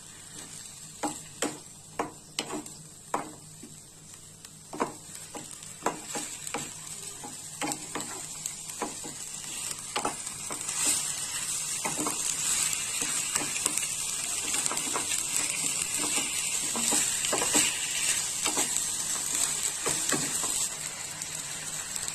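Raw chicken pieces frying in oil and spice paste in a kadai, sizzling while a spatula knocks and scrapes against the pan as it is stirred. The knocks are frequent in the first half, and the sizzle grows louder and steadier from about halfway through.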